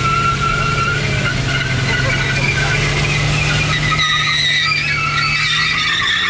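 BMW roadster doing a burnout: the engine is held at steady high revs while the rear tyre spins on concrete with a continuous, wavering high squeal.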